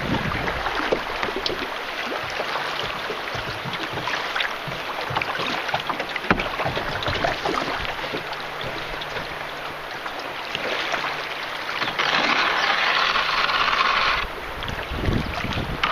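River water rushing and splashing around a canoe on the Chattahoochee, with scattered small knocks. The hiss steps up for about two seconds near the end, then drops back suddenly.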